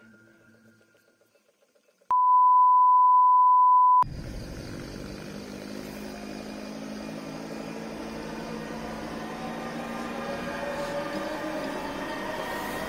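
Faint music fades out, then a loud, steady electronic beep of one pitch sounds for about two seconds and cuts off suddenly. Street noise follows, with a vehicle engine hum that slowly grows louder.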